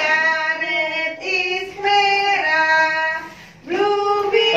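Young children singing a song in held notes, with a woman's voice among them. The phrase breaks off briefly about three and a half seconds in, then the singing starts again.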